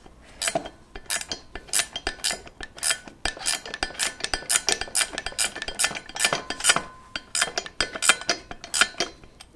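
Steel wrench clinking on the bolt at the center joint of a driveshaft as it is worked loose, with a screwdriver wedged through the universal-joint yoke as a brace: a run of sharp metallic clicks, two or three a second.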